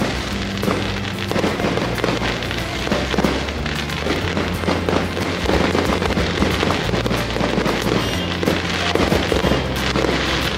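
Aerial fireworks bursting and crackling in quick succession, with music playing at the same time.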